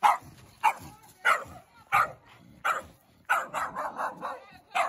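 A small dog barking sharply over and over, about once every two-thirds of a second. About three seconds in it breaks into a quick run of six or so barks, then gives one more.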